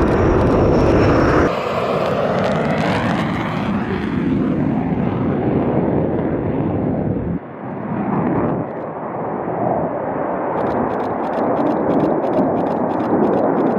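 Jet aircraft engines at takeoff power: a loud, steady rush of engine noise that changes abruptly at about 1.5 s and 7.5 s where the footage is cut. Over the last few seconds a rapid crackling is heard in the high end.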